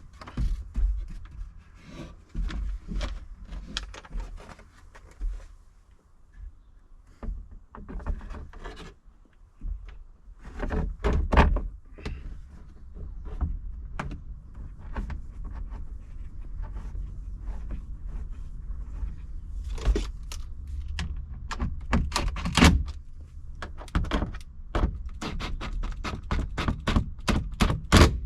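Irregular knocks, taps and clicks of hand work on a vehicle's interior roof fittings: the sun visor and plastic roof console being offered up, pushed and fixed into place overhead. The knocks come in clusters, busiest about eleven seconds in and again in the last third.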